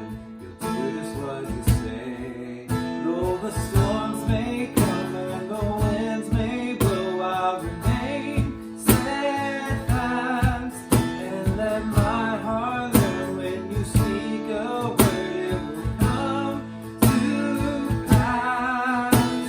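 Live worship band playing a song: strummed acoustic guitar over a steady beat, with a sung vocal line.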